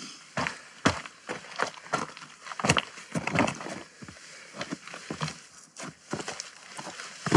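Hiking boots stepping on rock and loose stones, irregular footfalls about one or two a second that grow closer and louder, with the loudest step at the very end.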